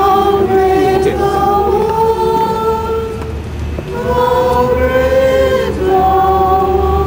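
A group of voices singing a slow hymn, with long held notes that change every second or two, over a low steady hum.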